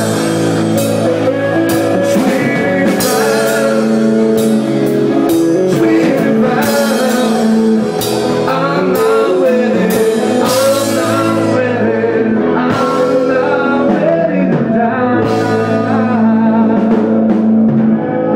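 Live rock band playing loud: distorted electric guitars, bass and a drum kit with cymbal hits, with a singer's voice over the top.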